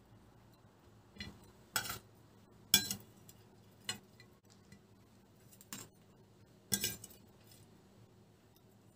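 A fork and a slotted metal spatula clinking against plates as pieces of fried liver are lifted and served: about six separate sharp clinks, the loudest about three seconds in and again near the seventh second.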